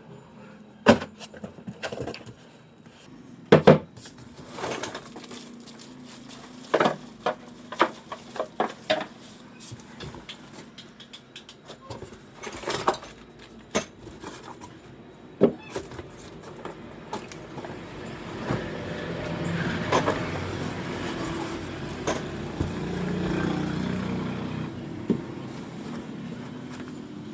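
Irregular clicks, taps and knocks of small metal and plastic motorbike parts and their packaging being handled. A low, hazy rumble swells in the second half.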